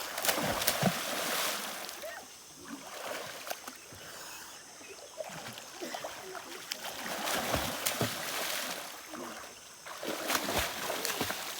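River water splashing, coming in surges of a second or two, about four times, with a few sharp knocks among them.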